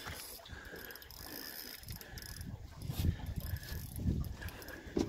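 Spinning reel worked while playing a hooked salmon: a fast run of fine mechanical clicks from the reel, with a few low thumps about three and four seconds in.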